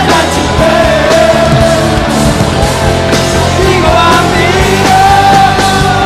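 Live rock band playing loudly: a male lead singer holds long notes that bend in pitch over electric guitars, bass and drums.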